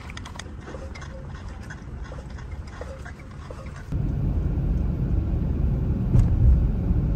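Scattered light taps and clicks over a low hum in a concrete parking garage. About four seconds in, this changes suddenly to the steady low rumble of road and engine noise inside a car cabin driving on a highway.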